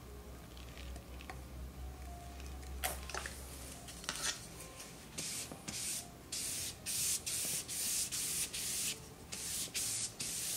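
Hand-pump misting spray bottle squirting in quick repeated sprays, about two a second, starting about halfway through. It is misting a fresh coat of GAC 100 acrylic medium so it self-levels without brush strokes. A couple of light clicks come before the spraying.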